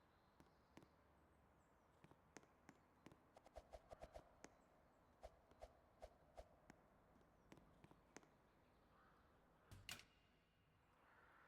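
Near silence broken by scattered faint clicks, with a quick run of them about three to four seconds in and one sharper tap near the end.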